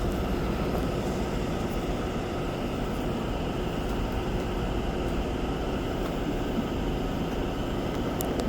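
Steady rushing background noise with no speech and a faint click near the end.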